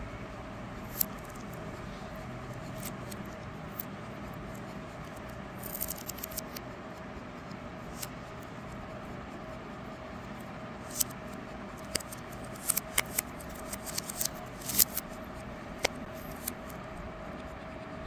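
Plastic LEGO Technic parts clicking and snapping as a LEGO butterfly knife is put together and handled. The clicks are scattered, with a short cluster about six seconds in and many more in the later part, over a steady background hum.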